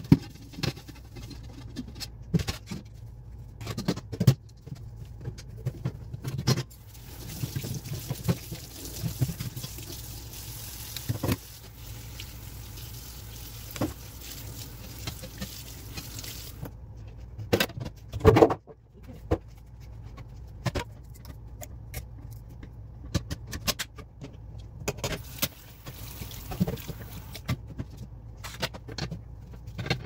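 Clear plastic refrigerator drawers and shelves being washed in a stainless steel sink: water running from the faucet at times, sponge scrubbing, and frequent short knocks and clatters of the plastic parts against the sink, the loudest about 18 seconds in. A steady low hum runs underneath.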